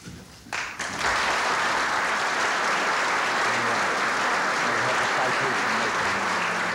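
Audience applauding, starting suddenly about a second in and holding steady, then beginning to fade near the end.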